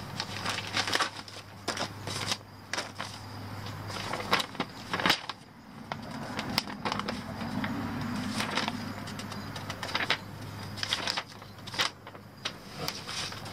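A clear plastic bag being crinkled and handled, with irregular sharp crackles and clicks, over a steady low hum.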